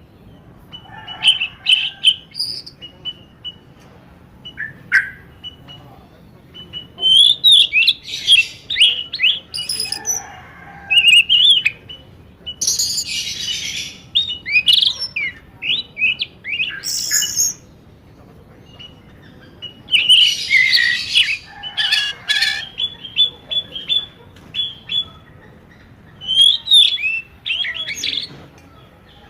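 Birds chirping and squawking in loud clusters of rapid, quick high calls, with short quieter gaps between the clusters.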